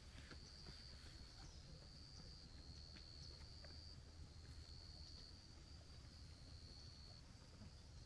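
Faint, steady high-pitched insect trill, breaking off briefly every second or so, over a low hum.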